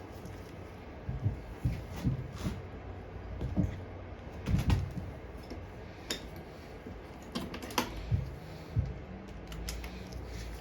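Irregular clinks and clicks of metal hand tools and small parts being handled, as wrenches or sockets are tried on a lawn mower carburetor's small mounting bolts.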